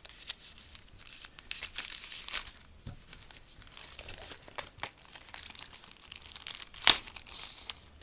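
Wrapping on a small package crinkling and tearing as it is opened by hand, in irregular crackly bursts, with one sharp loud click about seven seconds in.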